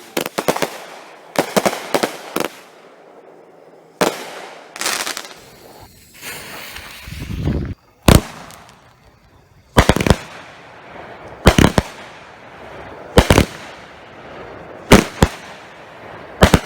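A Cutting Edge Power Zone 200-gram fanned firework cake firing, with sharp bangs in quick pairs and clusters every second or two, its shells lifting and bursting.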